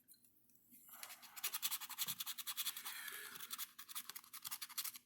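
Scratching the coating off a scratch-off lottery ticket: a quick run of short, rapid scrapes that starts about a second in and stops just before the end.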